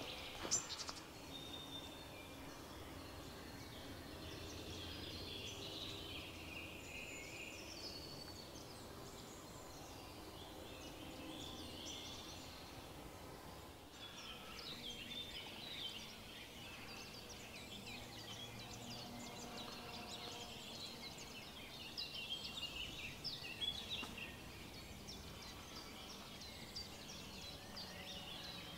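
Woodland songbirds singing: a chorus of many short, high chirps and trills from several birds at once, busier in the second half.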